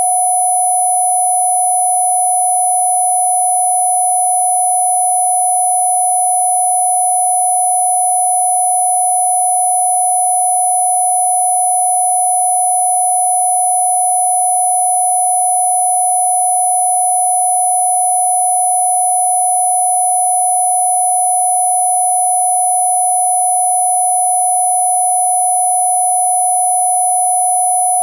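Electronically generated pure tone held perfectly steady at one mid pitch, with a few fainter high-pitched tones above it, played as a Rife healing frequency.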